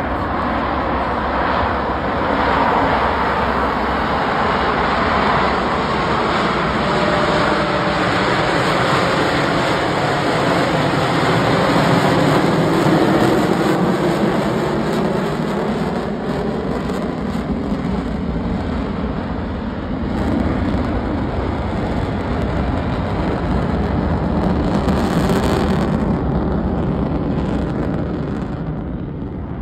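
Two Blue Angels Boeing F/A-18 Super Hornet jets passing overhead in formation: a loud, steady jet-engine roar with a faint sweeping tone that falls and then rises as they go by. The roar fades near the end.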